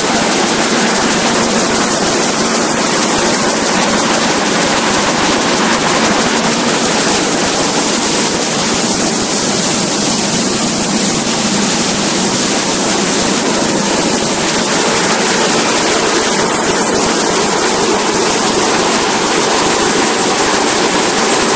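A seed destoner running with a steady, loud rush of air and seed across its vibrating screen deck, and a faint low hum underneath.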